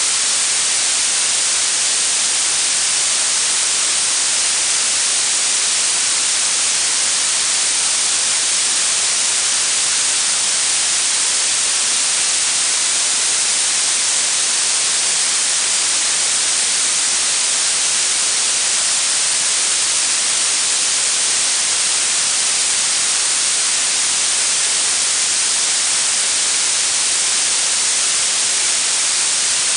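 Blue noise: a steady, unbroken hiss that is strongest in the high treble and thins toward the bass, like a fine spray.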